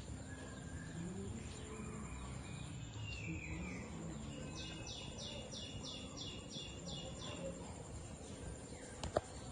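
A bird calls a run of about nine quick, evenly spaced high notes, about three a second, over steady outdoor background noise. A single sharp knock comes near the end.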